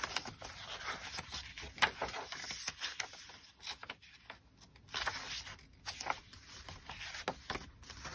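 Paper and card rustling, with irregular soft clicks and scrapes, as the pages and folded flaps of a handmade paper junk journal are turned and handled.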